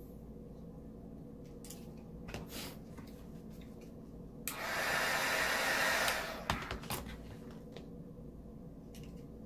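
Heat gun blowing a short blast of hot air to soften the vinyl wrap: a steady rush that starts suddenly about halfway through and dies away under two seconds later. Light clicks and taps of handling the trim piece come before and after it.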